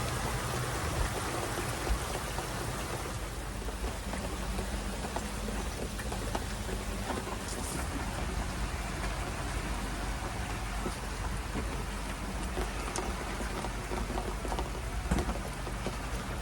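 Heavy tropical rain shower pouring down: a steady hiss peppered with small ticks of drops striking, over a low steady hum.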